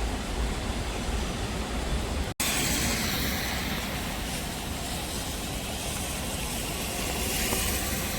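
Steady hiss of monsoon rain and rushing stream water, mixed with the hiss of traffic on wet roads. The sound drops out for an instant a little over two seconds in, then comes back brighter and swells twice.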